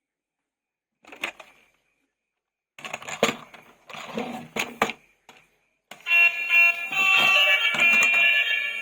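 Plastic toy handling: a rustle, then a run of clicks and rustles. About six seconds in, a toy vehicle's electronic sound chip starts up loudly with a siren-like alarm sound over a tune.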